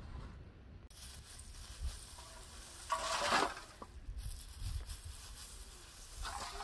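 Dry hay rustling and crackling as it is scooped up by hand, loudest a little past three seconds in.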